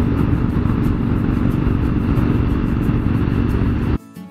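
Suzuki V-Strom 1000 motorcycle running at a steady highway speed, its engine noise mixed with wind rush. It cuts off suddenly near the end, giving way to acoustic guitar music.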